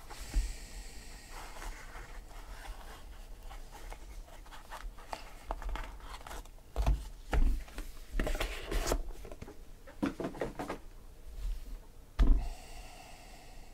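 Hands unpacking a trading-card box: rubbing and scraping of cardboard, foam insert and plastic card holders, with a few sharp knocks as pieces are handled and set down. The loudest knock, about twelve seconds in, is a stack of cards being put down on the table.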